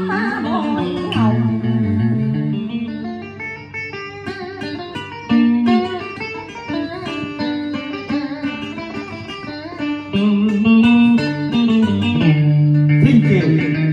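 Guitar accompanist of a southern Vietnamese vọng cổ / tân cổ song playing a plucked instrumental melody between the sung lines, with no voice. The melody is picked in short notes over held low notes and gets louder about 10 s in.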